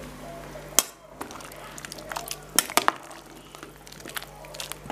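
Scattered light clicks and knocks of kitchen utensils against a cooking pot of soup. The sharpest comes about a second in, and a few come close together near the middle.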